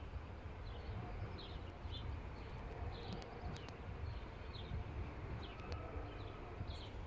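Small birds chirping in short, repeated calls over a low, steady rumble.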